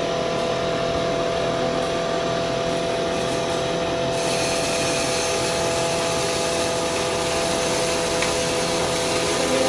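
Stoneless stainless-steel mini besan grinder running, a loud steady motor hum with a constant whine and grinding hiss; the hiss grows brighter about four seconds in.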